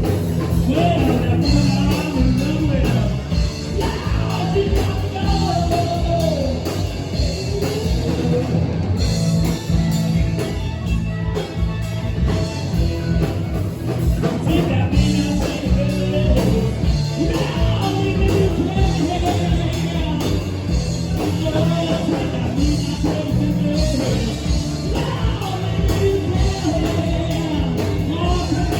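Rock band playing live: a singer over guitar and a steady drum beat.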